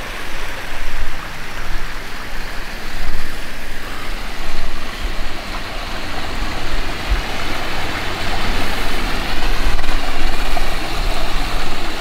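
Creek water rushing through a narrow rock channel cut by erosion: a steady wash of noise with a low rumble underneath that swells and fades.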